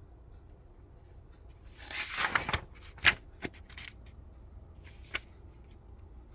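Plastic model-kit parts and their packaging being handled: a short rustle about two seconds in, then a few sharp clicks.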